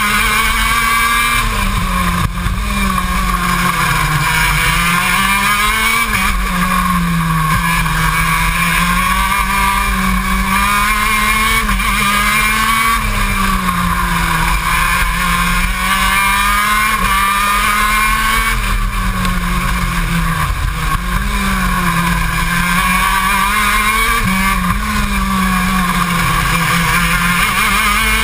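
KZ2 shifter kart's 125cc two-stroke engine at racing pace, heard from a camera on the kart: the revs climb and fall again and again as the driver accelerates out of corners and lifts into them.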